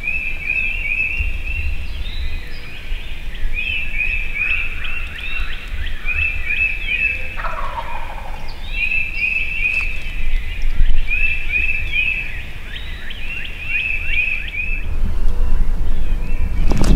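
Wild turkey gobbling, amid songbirds singing in repeated quick chirping phrases. A loud low thump comes right at the end.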